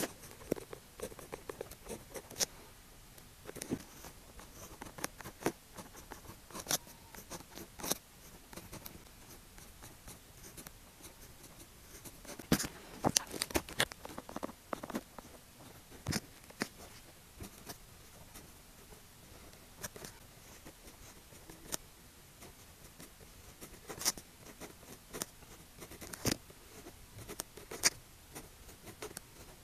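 A pen writing on paper: short scratchy strokes and light taps in irregular bursts, with brief pauses between characters.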